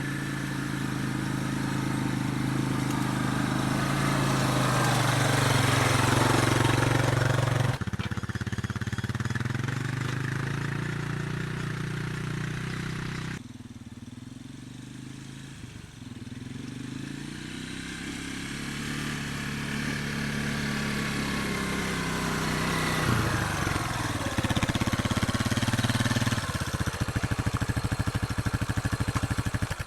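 A motor vehicle's engine running, heard in several separate stretches that break off abruptly about 8, 13 and 26 seconds in, its pitch gliding up and down between them.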